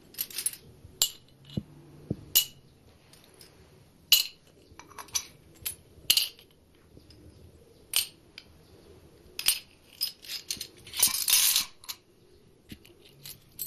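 Scattered sharp clinks and taps of small hard objects at irregular intervals, with a longer, denser rattle about eleven seconds in.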